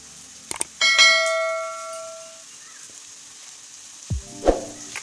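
Two quick clicks, then a bright bell-like ding that rings out and fades over about a second and a half: the sound effect of a subscribe-button animation. A low thud and another click come near the end.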